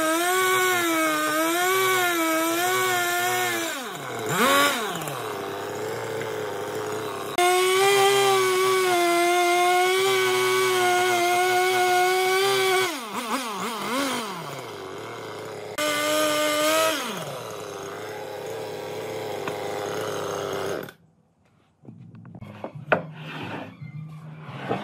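Husqvarna two-stroke chainsaw cutting through a log at high revs, its pitch wavering under load and falling away three times as the throttle is let off. It stops near the end and a few light wooden knocks follow as the cut slices are set down and stacked.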